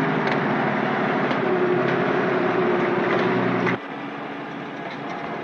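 Truck engine running steadily as the truck drives. The sound is loud at first, then drops suddenly to a quieter steady drone at about two-thirds of the way through.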